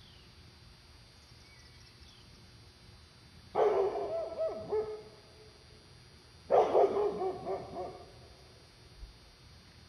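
A guard dog barking at a black bear: two volleys of several quick barks, the first about three and a half seconds in and the second about three seconds later.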